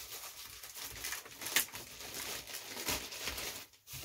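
A plastic postal bag rustling and crinkling as it is torn open and a bubble-wrapped box is pulled out of it, with a couple of sharper crackles.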